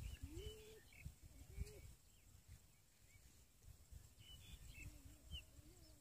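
Faint, low cooing calls of doves, four short coos each rising and then holding, with a few thin, high chirps of small birds and a low, uneven rumble underneath.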